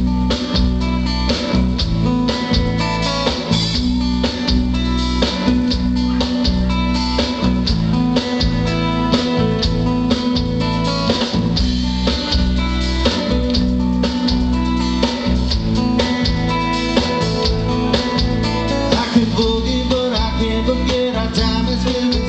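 Live rock band playing an instrumental passage: electric guitar and bass guitar over a steady drum-kit beat, with acoustic guitar strumming.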